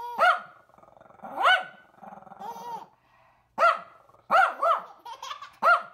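Small dog barking repeatedly: about six short, sharp barks, two of them in quick succession about two thirds of the way through.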